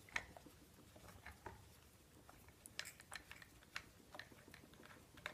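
Faint scattered clicks and light metallic ticks: the last bolt being spun out of a 200-4R automatic transmission front pump by hand.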